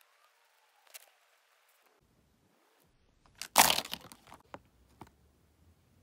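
A sheet being handled: a small click about a second in, then a loud, brief crinkle about three and a half seconds in, followed by a few small clicks.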